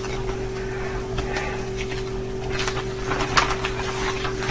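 Faint rustling and light taps of record sleeves and packaging being handled, with a sharper tap about three and a half seconds in, over a steady electrical hum.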